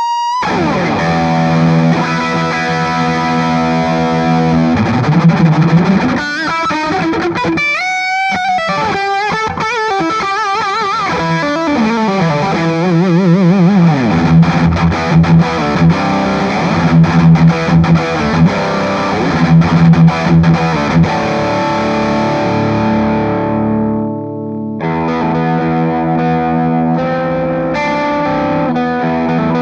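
Gibson Les Paul Special double-cut electric guitar with P-90 pickups, played through a high-gain Soldano amp: heavily distorted riffs and lead lines with string bends and vibrato. There is a short stop near the end before the riffing resumes.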